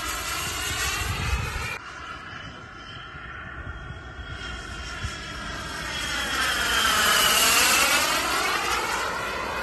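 Turbine engine of a large HSD J-10A model jet in flight, a high whine with many overtones. The sound drops suddenly a little under two seconds in, then grows to its loudest late on, where the pitch of the whine dips and rises again.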